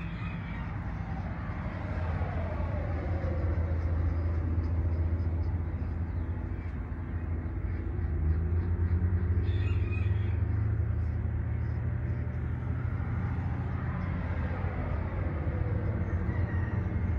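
Steady low mechanical rumble like a running vehicle engine, with a falling tone about two seconds in and again near the end.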